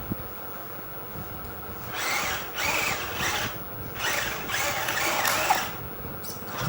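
Small electric motor of a radio-controlled construction vehicle whirring in two bursts, the second one longer, its pitch rising and falling as it works.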